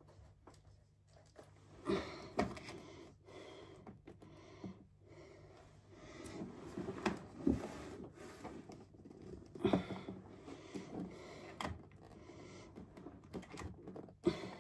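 Picture frames handled against a wall: scattered light knocks, taps and scrapes as they are set down and shifted into place.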